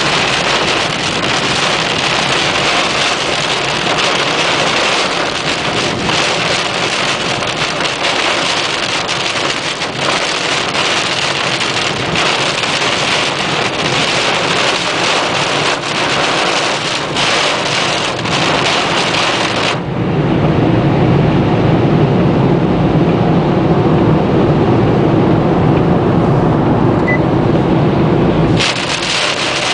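Heavy rain on a car: a dense, steady hiss with scattered sharp drop hits. About two-thirds of the way through, it turns abruptly into a louder, duller low rush for several seconds, then the bright rain hiss returns.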